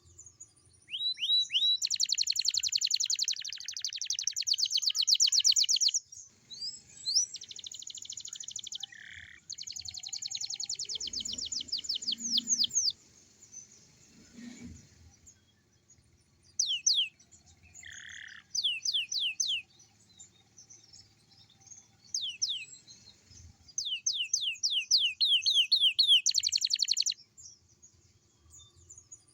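Young domestic canary singing: fast trills of rapidly repeated sweeping notes and chirped phrases lasting a few seconds each, with short pauses between them.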